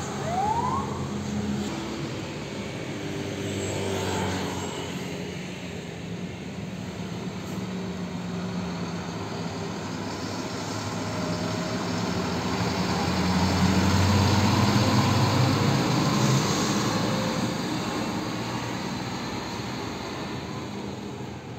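Heavy diesel tanker trucks passing on the road, engines running with tyre and road noise. The sound swells to its loudest about two-thirds of the way through as a truck pulls away close by.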